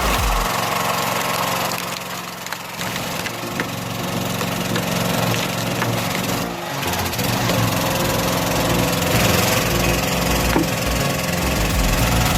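An engine-driven wood-processing machine running steadily while wood cracks and splinters, with a short break about six and a half seconds in.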